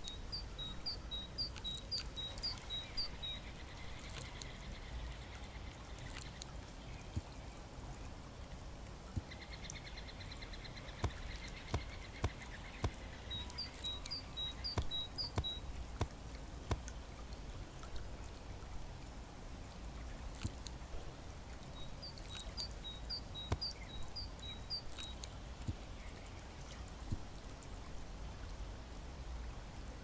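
Outdoor birdsong: a small songbird repeats a short phrase of high notes alternating between two pitches, three times, with fainter high bird calls between, over a low steady rumble and scattered sharp taps.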